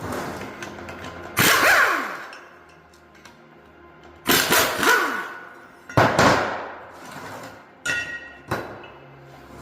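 Hammer blows on the metal of a differential being taken apart: three hard strikes, each ringing out briefly, then two lighter knocks near the end.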